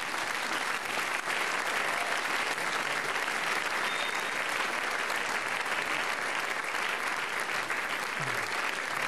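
Audience applauding, a dense steady clapping that holds without a break.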